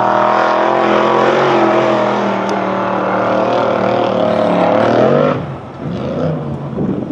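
Formula Offroad hillclimb car's engine held at high revs under full load as it climbs a steep sand slope, wheels spinning. The engine note holds high and fairly steady, then drops away abruptly about five seconds in.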